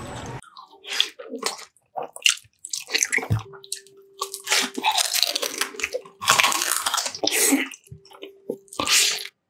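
Chewing and crunching of food close to the microphone, in short bursts with brief silent gaps between them.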